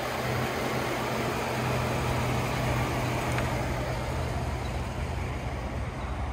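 Pickup truck engine idling with a steady low hum, under wind noise on the microphone.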